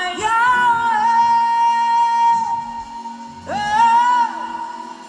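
A voice singing slow, long held notes over a steady low accompaniment, in two phrases: the first held for about two seconds, the second starting about halfway through.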